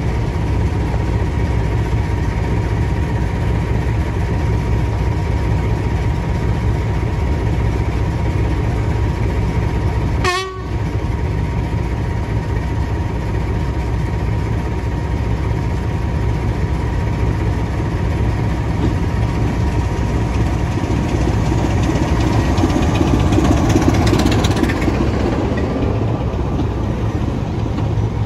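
BR Class 25 diesel locomotive's Sulzer engine working as it brings a passenger train in and passes close by. The sound swells about two-thirds of the way through as the locomotive goes by. The sound cuts out briefly about ten seconds in.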